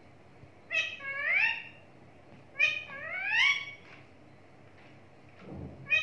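Rose-ringed parakeet calling twice, each call a short falling note followed by a longer rising one, with a low thump near the end.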